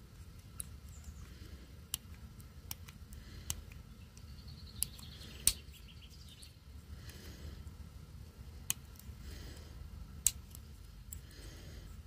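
Small sharp metallic clicks and light scraping from a dimple pick and tension wrench working the pins of a worn Van Vault stainless-steel disc padlock, about ten scattered clicks with a quick run of fine ticks about four seconds in.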